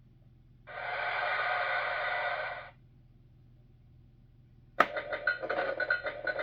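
Electronic sound clips from a Fisher-Price Great Adventures castle toy's small speaker: one lasting about two seconds about a second in, then a sharp click near the end followed by another, choppier clip.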